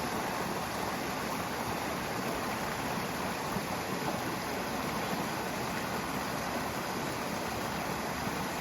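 Steady rush of water from a small waterfall and stream, an even hiss with no breaks.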